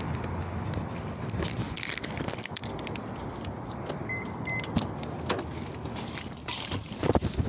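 Keys jangling and the phone being handled while walking, heard as many small rattling clicks over a steady low background rumble. Two short high beeps come about four seconds in.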